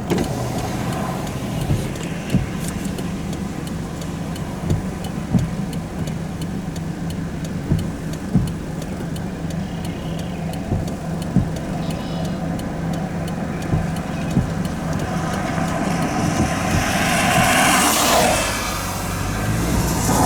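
A vehicle's engine runs steadily, with occasional light knocks. Near the end another vehicle passes close by, its rush swelling and then falling away.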